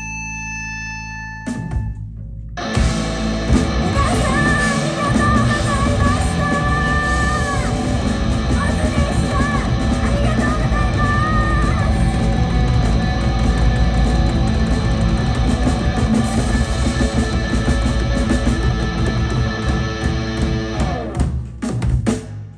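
Live band playing loud, distorted noise rock: a held electric guitar chord rings for about two seconds, then the full band with drums comes in as a dense wall of noise. Near the end it trails off in falling sweeps.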